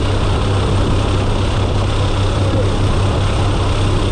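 Steady drone of a DHC-6 Twin Otter's twin PT6A turboprop engines and propellers in flight, heard from inside the cabin, with a strong low hum underneath.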